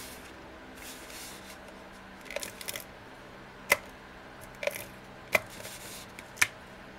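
Fast Fuse adhesive applicator drawn along small cardstock tabs: short rasping strokes as the adhesive is laid down, with several sharp clicks in the second half.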